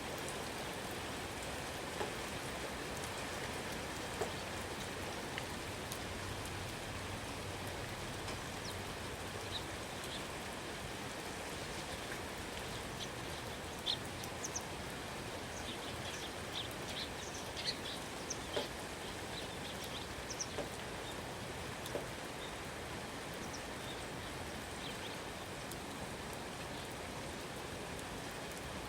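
Steady rain falling, with a few louder individual drops landing now and then. Short high bird chirps are scattered through the middle stretch.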